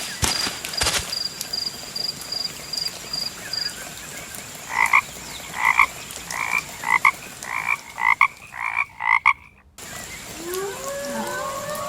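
Frog croaking: a series of about nine evenly paced calls that come a little faster and then cut off abruptly. A fast, high chirping runs through the first few seconds, and long gliding calls that rise and fall begin near the end.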